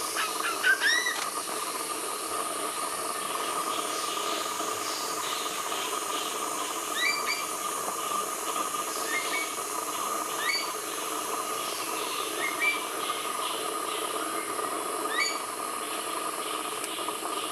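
Green magpie calls: about ten short, rising, squeaky chirps at irregular intervals, the loudest a second in, over a steady hiss.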